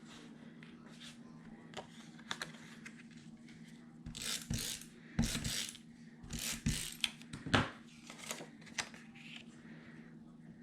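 Paper handling: rustling and light taps as scrapbook paper pieces are moved and laid down, clustered in the middle, over a faint steady hum.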